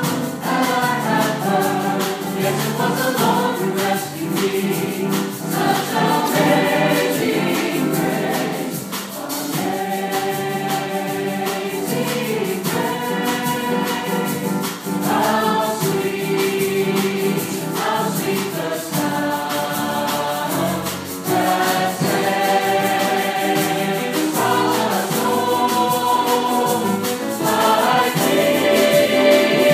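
A mixed choir of men's and women's voices singing a gospel song in parts.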